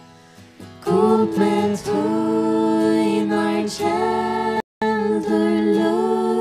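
Several voices singing a slow worship song in Faroese, with long held notes. The singing comes in about a second in after a quiet pause. The sound cuts out completely for a split second about four and a half seconds in.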